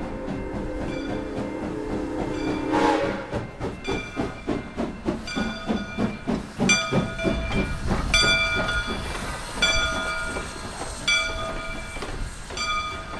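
Soo Line 1003, an ALCO 2-8-2 Mikado steam locomotive, running past at speed. Its chime whistle cuts off about three seconds in. Quick exhaust chuffs follow, about three a second, along with a bell striking about every second and a half.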